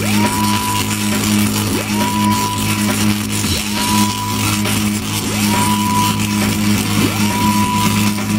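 Loud show soundtrack music: a steady low drone with a short rising swoop that repeats five times, about every second and three-quarters.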